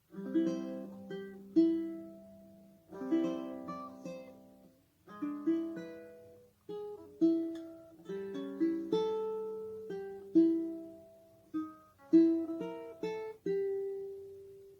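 Ukulele played alone: plucked chords and single notes that ring and die away, in short phrases with brief pauses between them.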